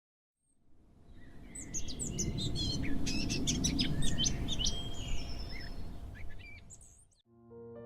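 Several birds chirping and calling in quick, varied phrases over a low, steady forest rumble. The sound fades in over the first couple of seconds and fades out near the end, and a piano starts playing just before the end.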